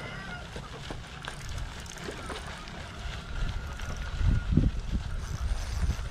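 Wind rumbling on the microphone in gusts, strongest about four seconds in, with a few faint clicks and thin distant chirps over it.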